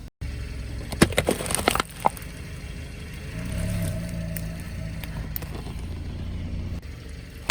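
A car moving slowly with its engine running low, and a quick series of sharp cracks and crunches about one to two seconds in as something brittle breaks under a tyre.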